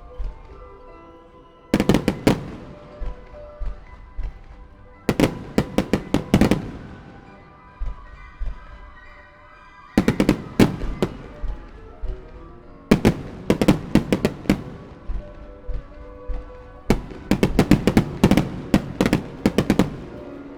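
Aerial firework shells bursting in rapid volleys of sharp bangs, starmine-style, in five clusters about every three to four seconds. Music plays steadily beneath the bursts.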